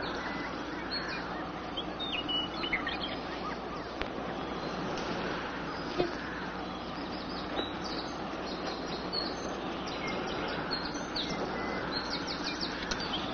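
Outdoor ambience: small birds chirping now and then over a steady background hiss.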